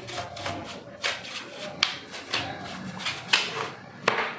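Laptop hard drive being taken out of its bay by hand: irregular scraping and rubbing of plastic and metal, with several sharp clicks.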